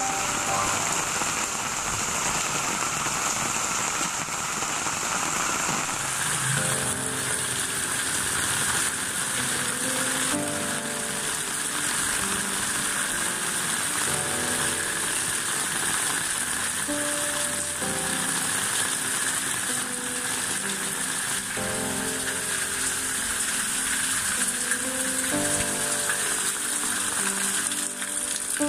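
Steady rain falling on the ground and roofs, a continuous even hiss, with water running off the roof edges. A slow instrumental melody plays over the rain.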